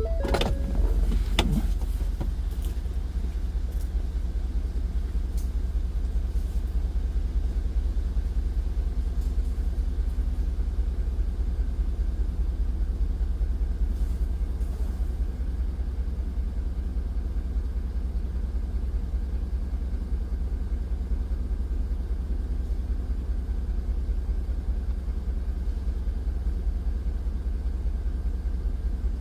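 Pickup truck driving, a steady low engine and road rumble heard from inside the cab, with a few knocks in the first second or so.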